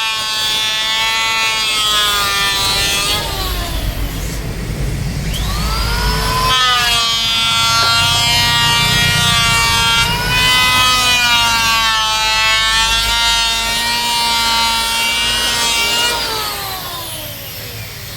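Electric woodworking power tool motor whining at speed. It winds down about three seconds in and spins back up about five seconds in. It then runs steadily with a low rumble underneath and winds down near the end.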